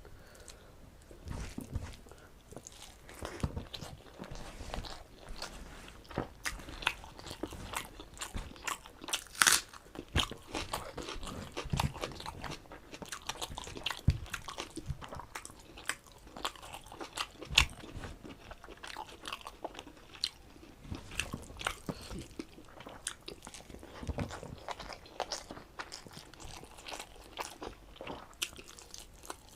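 Close-miked chewing and biting of mouthfuls of rice and mutton curry: irregular wet mouth clicks and crunchy bites, with a few sharper bites standing out.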